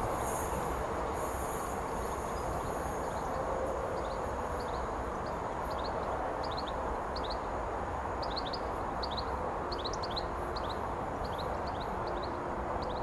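A small bird chirping in quick, short, repeated notes, starting about four seconds in, over a steady low rumble from a passing freight train.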